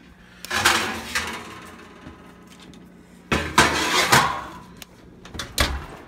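Metal baking pan and oven rack sliding and scraping in an open oven: two noisy scrapes of about a second each, then a short knock near the end.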